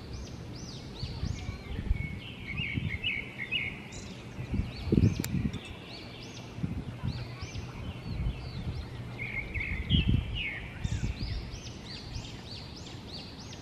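Small songbirds singing: phrases of short, repeated high chirped notes, with pauses between. Low dull thumps and rumbles sound under them, the loudest about halfway through and again near 10 seconds in.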